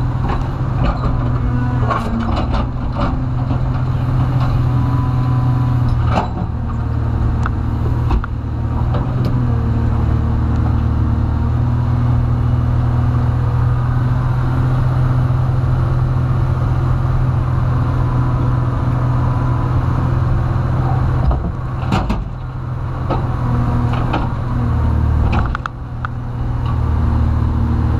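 Komatsu PC300 excavator's diesel engine and hydraulics working under load, heard from the cab, the engine note rising and falling as the boom swings and the bucket digs. Several sharp knocks and clatters of rock and broken concrete in the bucket cut through, the loudest about 22 seconds in.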